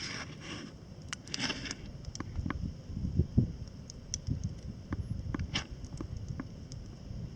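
Wood campfire crackling, with irregular small snaps and pops and one sharper pop about three and a half seconds in, over a low rumble.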